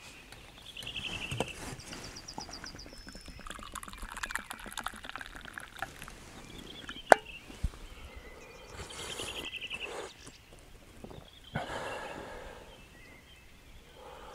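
Several songbirds singing short trills and phrases of repeated notes. There is a single sharp click about seven seconds in, and two brief stretches of soft hiss later on.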